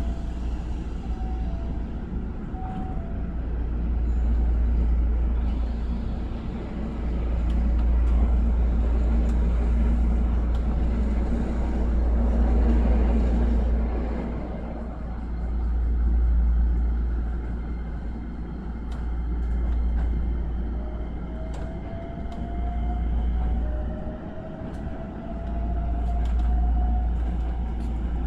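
Hankyu 9300-series electric train heard from inside the car as it pulls away: a deep rumble of the running gear that swells and fades, and in the last third a whine from the traction motors rising slowly in pitch as the train accelerates.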